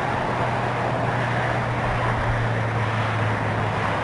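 Steady outdoor background rush with a low steady hum, in the way of traffic or an engine nearby. The hum fades out near the end.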